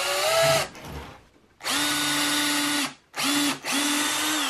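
Cordless drill boring pilot holes through a wooden cleat for 2-inch screws. The motor whines in four short runs that start and stop abruptly: one rising in pitch and cutting off under a second in, then a long run, a brief one and another long one.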